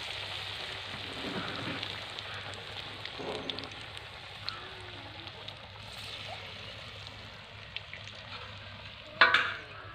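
Vadas deep-frying in hot oil in a kadai: a steady sizzle and bubbling with small pops. A short, much louder sound comes near the end.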